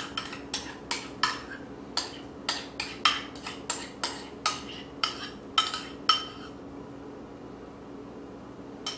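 A utensil clinking and scraping against bowls as sour cream is knocked out of a small bowl into a stainless steel mixing bowl of potatoes: a quick run of sharp, ringing clinks, about three a second, that stops about six seconds in.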